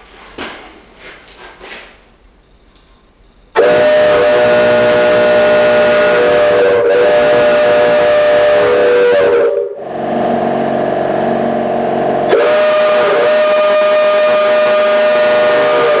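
Handmade brass tritone steam-locomotive whistle blown on compressed air from a workshop compressor at about 110 PSI. After a few faint knocks, it starts suddenly about three and a half seconds in with a very loud, steady three-note chord; near the middle it breaks and shifts to a lower chord for a couple of seconds, then returns to the first chord.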